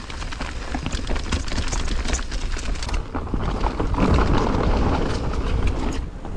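Mountain bike descending a rough, rooty and rocky downhill trail: the tires rumble over dirt and the bike rattles with many quick knocks. Wind buffets the microphone throughout, heaviest in the second half.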